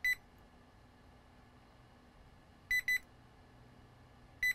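Digital multimeter in diode mode giving short high beeps as its probe touches capacitors on a laptop motherboard: one beep just after the start, a quick double beep about three seconds in, and another near the end. The beep is the meter's tone for a near-zero reading, sounded here on capacitors the technician has found shorted to ground.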